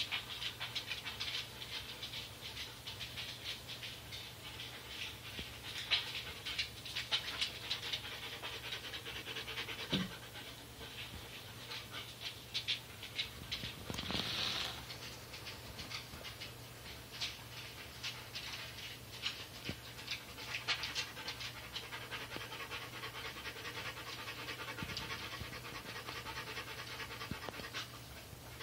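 Dog panting steadily, with a low knock about ten seconds in and a brief louder breathy hiss about halfway.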